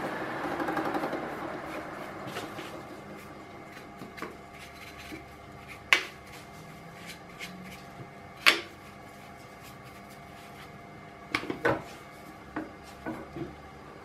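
A milling machine's half-inch corn cob roughing end mill finishes its cut through a steel channel-iron flange. The cutting noise fades away over the first couple of seconds, and the machine keeps running with a steady hum. A few sharp clicks come about halfway through, with a cluster of clicks and knocks near the end.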